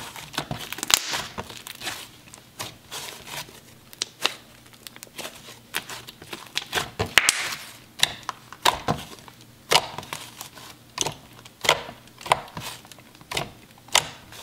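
Hands squishing and poking a soft, creamy, fluffy clay slime, making an irregular run of sharp clicks and air-bubble pops as fingers push in and pull out.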